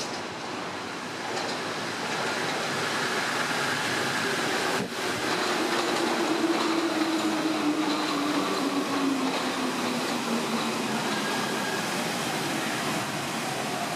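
Rubber-tyred Paris Métro Line 1 train approaching and passing close by on the adjacent track. Its running noise swells as it nears, and about five seconds in its motor tone starts to fall steadily as it goes past.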